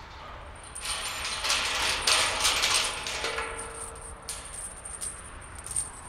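Metal chain and padlock on a wire-mesh gate rattling and jangling as they are handled, loudest about a second in, with a few lighter clinks near the end.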